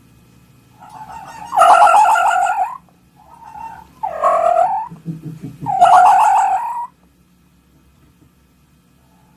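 A fox calling: three loud, harsh, hoarse screams, each about a second long, with a short softer yelp between the first two.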